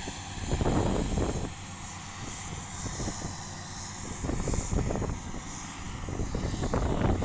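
Komatsu D65P bulldozer working: its diesel engine runs steadily under a stream of irregular knocks and crunches, swelling louder about half a second in and again around four seconds in.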